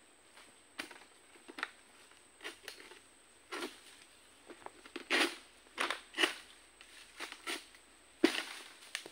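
Long-poled sickle (egrek) cutting into oil palm fronds high in the crown: a quick run of sharp cutting strokes, more than one a second, the loudest near the end.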